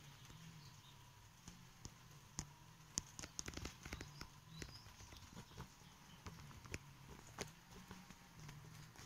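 Near silence: faint scattered clicks and taps, clustered about three to four seconds in, over a faint low hum.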